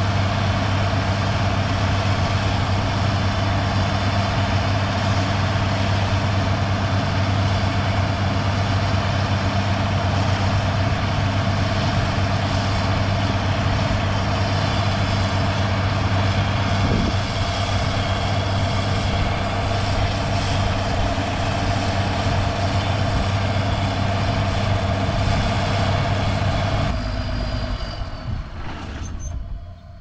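Heavy diesel harvest machinery running steadily under load, a constant low engine hum with a broad mechanical whir over it. About three seconds before the end it cuts back and fades.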